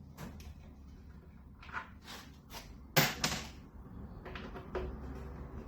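A series of knocks and clunks from tools and parts being handled while a pool pump is taken apart, the loudest clunk about three seconds in.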